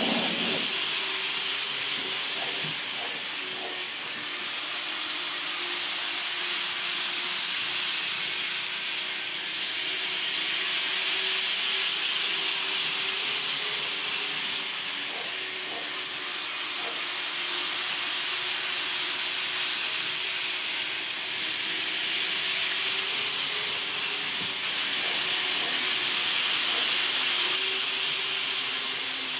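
N scale model trains running on Kato Unitrack: a steady hissing whir with a faint steady hum under it, swelling and fading several times.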